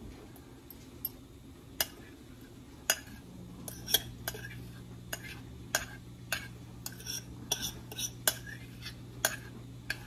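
Metal spoon clinking and scraping inside a plastic measuring cup, scraping out a melted butter and brown sugar mixture: irregular sharp clicks that come more often after a few seconds.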